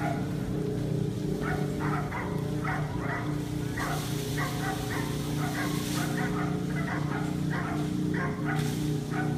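A dog barking over and over, two to three barks a second, over a steady low engine drone, likely the fireboat's pump engine driving the water cannon.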